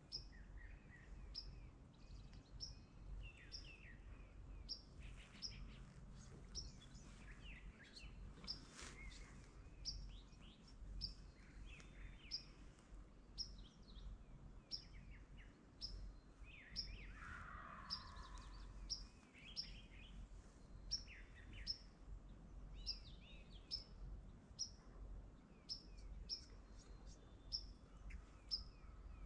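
Faint songbirds chirping, with one bird repeating a short high chirp about once a second. About two-thirds of the way through, a louder rattling call falls in pitch over a second or so.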